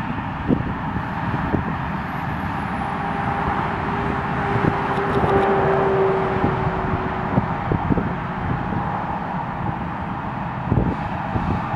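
Harvest machinery running steadily in the field, with a faint steady whine and a few short low knocks.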